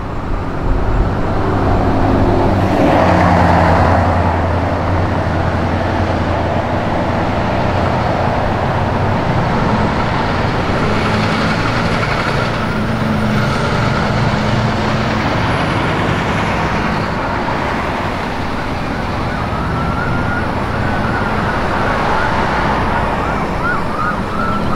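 Fire engine and road traffic going by: heavy diesel engine rumble, loudest in the first few seconds, under a faint emergency siren that switches to a fast yelp in the last few seconds.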